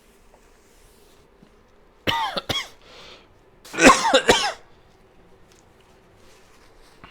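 A person coughing: a quick run of two or three coughs about two seconds in, then a louder cluster of coughs about a second and a half later.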